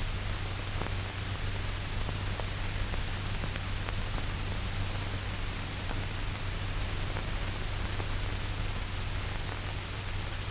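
Steady hiss and low hum of a 1940 film soundtrack, with a few faint clicks.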